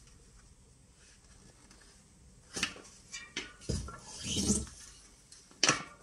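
A bicycle tyre being fitted by hand onto a Light Bicycle WR40 carbon rim. The rubber bead scrapes and snaps against the rim in a few sharp clicks and a short rub, starting about two and a half seconds in.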